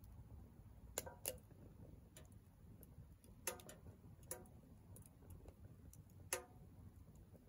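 Firewood burning in a Soomloom MECA mini wood stove: irregular sharp crackles and pops, a handful standing out clearly, over a faint low rumble.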